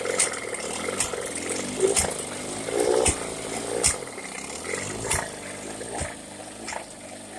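1979 Chrysler 9.9 hp two-stroke outboard running unevenly and sneezing, with sharp pops about once a second over the engine note. The running gets quieter about halfway through.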